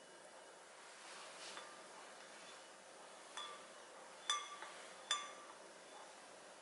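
Soy sauce liquid being stirred in a glass bowl: a soft liquid swish, then the spoon knocks against the glass three times, each knock ringing briefly.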